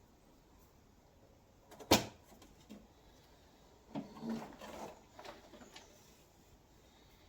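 A single sharp knock about two seconds in, then a stretch of rustling with small knocks and a few light ticks: hand work with tools and material on the vehicle's rear panels.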